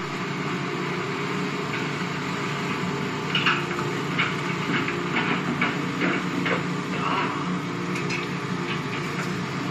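A steady low hum with hiss, and a run of irregular sharp knocks and clicks through the middle few seconds.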